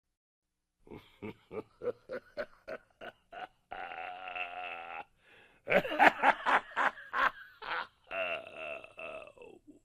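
A voice giving an evil laugh: a quick run of short 'ha' pulses, a long held note, then a louder burst of cackling and a last drawn-out laugh that falls slightly in pitch.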